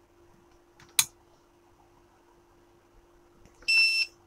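A sharp click, then about three seconds later a single short electronic beep, high and piercing, lasting about half a second.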